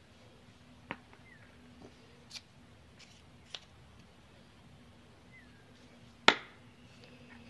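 A few small clicks and taps of metal parts as a chainsaw carburetor and screwdriver are handled, with one sharp, briefly ringing metal click about six seconds in.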